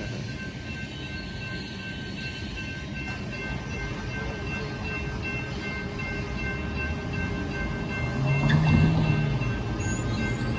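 Loaded gravel hopper cars of a Union Pacific freight train rolling past, a steady rumble of wheels on rail, with a road-crossing bell dinging steadily over it. The rumble swells louder about eight seconds in.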